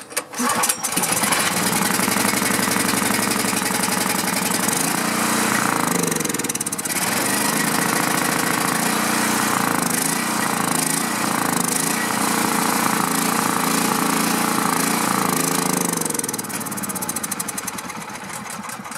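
Honda-clone single-cylinder OHV four-stroke engine on a portable generator, pull-started and catching within about a second. It runs with its speed rising and falling, then drops to a lower, uneven running near the end. The owner thinks the carburetor needs cleaning.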